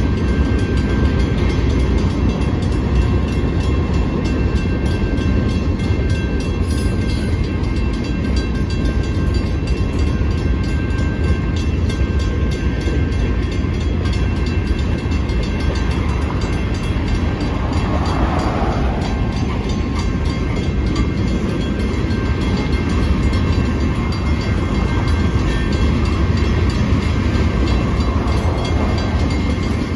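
Freight cars (covered hoppers and boxcars) rolling through a road grade crossing: a steady rumble and clatter of wheels on rail. The crossing's mechanical warning bell rings over it.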